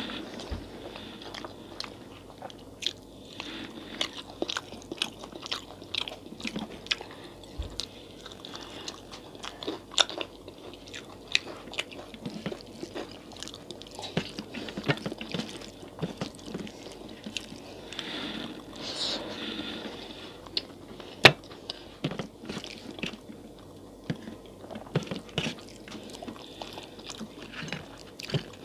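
Close-miked eating sounds: chewing and biting of a rice, dal and fried pakora meal eaten by hand, with irregular crunches and small clicks. One sharp crunch stands out about three quarters of the way through.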